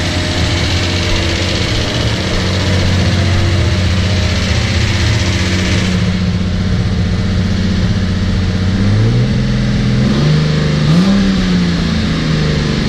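Datsun 280Z's rebuilt L28 straight-six running steadily at a raised break-in idle, above its normal 800 rpm. About three quarters of the way through, the engine speed wavers and rises briefly, then settles.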